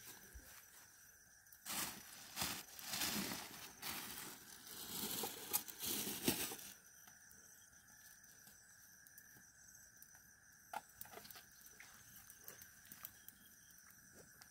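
Plastic bag rustling and crinkling as it is handled, for about five seconds starting near two seconds in, then stopping. Underneath, faint steady insect trilling.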